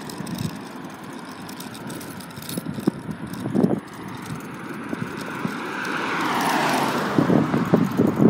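A car passes by, its tyre and engine noise swelling and then dropping in pitch about six to seven seconds in. Steady road noise runs under it, and wind buffets the microphone near the end.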